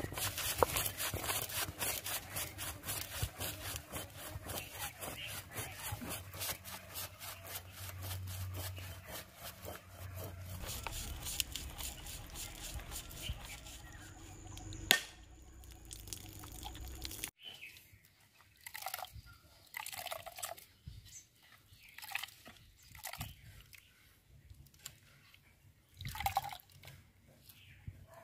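Stone roller crushing whole coriander seeds and spices on a flat granite grinding stone (miris gala), a fast run of gritty crunching strokes. After a sudden cut, quieter scattered drips and splashes of liquid follow.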